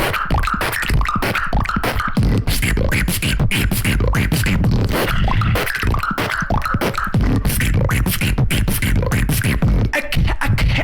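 Solo human beatboxing in a fast drum-and-bass style: rapid mouth-made snare and hi-hat clicks over deep bass, with sliding pitched vocal effects about halfway through.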